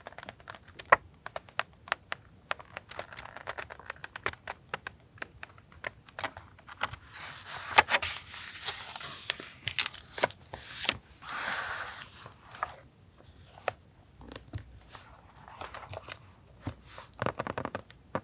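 Paper being handled for journal collage: crinkling and tearing, with many small sharp taps and clicks throughout. The longest rustling stretches come in the middle.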